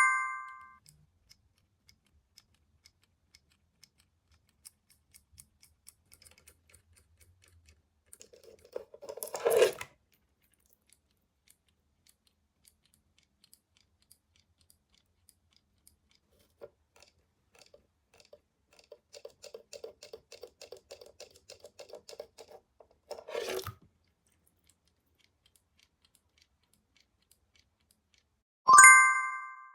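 Close-up handling noises: scattered soft clicks, a stretch of crinkling or scraping that ends in a louder rustle, and a quick rattling run of ticks that ends in another rustle. A bright bell-like chime rings near the end.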